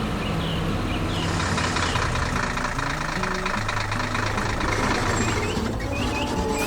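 Heavy-equipment engine running with a rapid chugging pulse, starting about a second in and dropping away near the end, over light background music and bird chirps.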